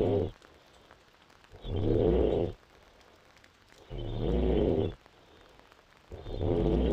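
A woman in deep sleep snoring in a steady rhythm, a rough, low snore about one second long roughly every two seconds: the end of one snore at the start, then three more.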